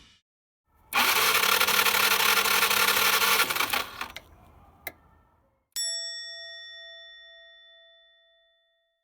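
A loud hiss-like burst of noise lasting about two and a half seconds, then a click, then a single bell-like ding that rings on and fades away over about three seconds.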